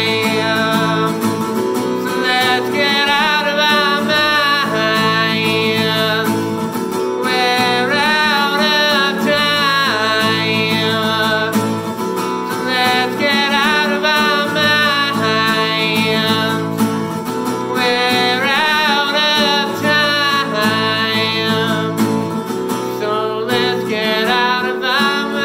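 A man singing over a strummed acoustic guitar, the voice rising and falling in sung phrases with short breaks between them.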